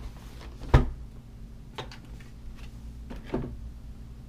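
Cardboard keyboard box and packaging being handled: one sharp thud just under a second in, then a few lighter knocks and rustles.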